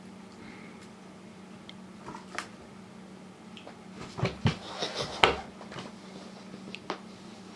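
Kittens scuffling around a cardboard box: a burst of thumps and scratchy scrabbling about four to five seconds in as a kitten jumps down onto the wooden floor and paws at the box, with a few light taps before and after. A steady low hum underneath.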